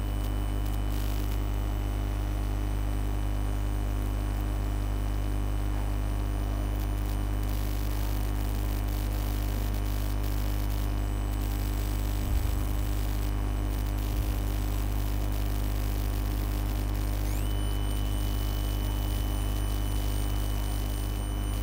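Steady electrical mains hum and buzz on the recording, with a thin high whine over it. A couple of faint knocks about twelve and fourteen seconds in.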